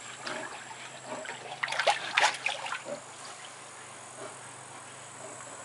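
Brown bear shifting about in a tub of water, the water splashing and sloshing in a short irregular burst about two seconds in, with smaller splashes around it.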